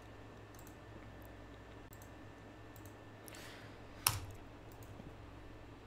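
Computer mouse clicking a few times, faintly, with one louder click about four seconds in, over a low steady hum.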